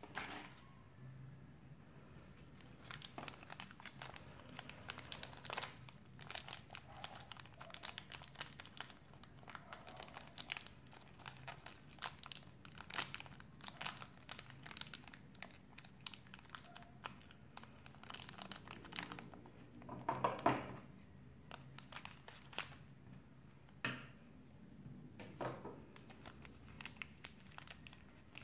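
Hands crumpling a thin yellow wrapper from a Shopkins blind pack, which crinkles in irregular crackling bursts. The loudest crackle comes about two-thirds of the way through.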